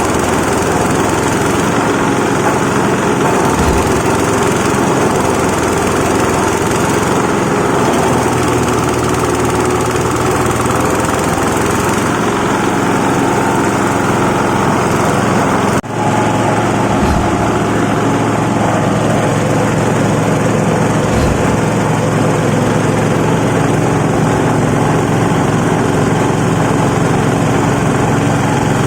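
Coconut husk shredding machine running steadily with a constant motor drone, briefly interrupted about sixteen seconds in.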